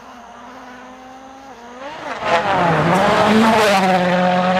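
Race car engine sound effect. The engine runs at a steady low pitch, revs up about two seconds in and runs loud with its pitch swinging up and down, then cuts off suddenly.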